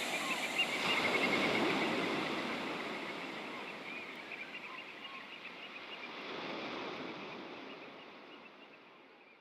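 Ocean surf washing in as a noisy hiss that fades out, with one wave swelling up about two-thirds of the way through.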